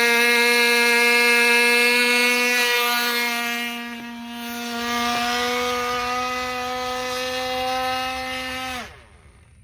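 Small two-stroke K&B Torpedo .19 glow engine on a free-flight model plane running with a steady, high-pitched buzz. It gets somewhat quieter after about four seconds and stops abruptly near the end.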